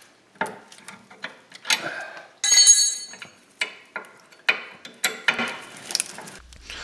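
Steel combination wrenches clinking and clanking against each other and the sway bar link nut in irregular knocks. About two and a half seconds in comes one loud ringing metal clang. A wrench hooked onto the end of another for leverage is breaking the link nut free.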